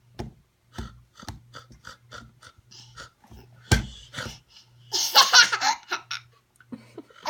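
A toddler laughing: a run of short giggles about three a second, then a louder, high-pitched burst of laughter a little past the middle.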